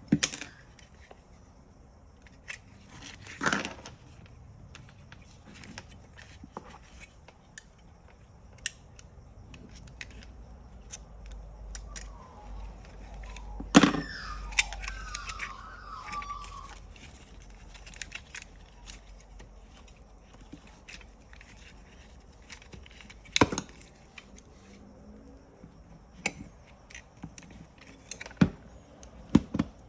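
Scattered clicks and knocks of seatbelt-retractor parts being handled during disassembly, with a brief squeaky scrape in the middle.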